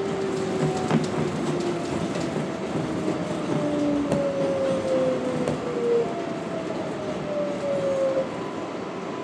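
R188 subway car heard from inside, braking into a station. The rumble of wheels on rail sits under a traction-motor whine that falls in pitch in several steps, and the whine ends near the end as the train slows.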